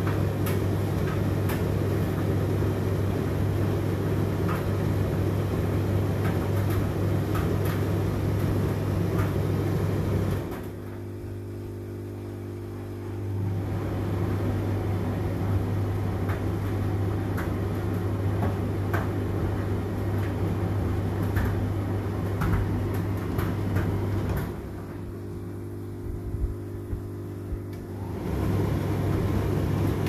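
Indesit IDC8T3 condenser tumble dryer running its cooldown: a steady motor hum under the rustle of the turning drum, with scattered light clicks. The drum noise drops away twice for about three seconds, about ten seconds in and again near the end, while the hum carries on.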